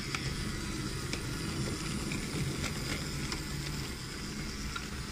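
Battery-powered wooden toy train running along wooden track: a steady low rumble of motor and wheels, with a few faint clicks.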